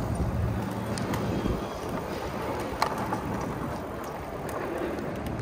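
Wind rushing over the microphone and the rolling noise of an e-bike on the move, with a single sharp click about three seconds in.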